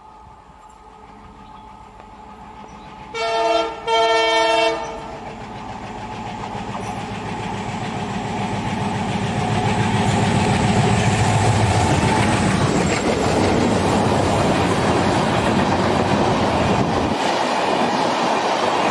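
WDM-3A diesel-electric locomotive sounding its multi-tone horn in two short blasts, the second a little longer. Its ALCO diesel engine's rumble then grows louder as it approaches and passes, and gives way to the steady wheel-on-rail noise of the LHB coaches rolling by.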